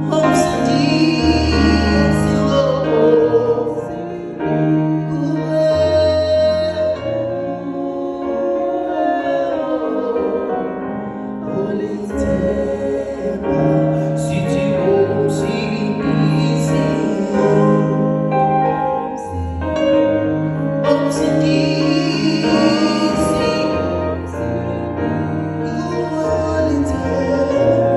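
Music with singing, sustained sung notes over a bass line.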